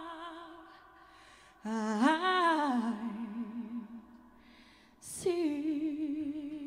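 A woman singing unaccompanied, wordless long notes with vibrato. One note dies away at the start, a new phrase swells up and falls back about two seconds in, and another held note begins about five seconds in.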